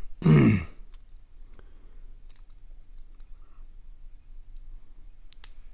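A short voiced murmur at the very start, then faint, irregular small clicks of a lock pick and tension wrench working the pin stack inside a Euro-profile cylinder lock.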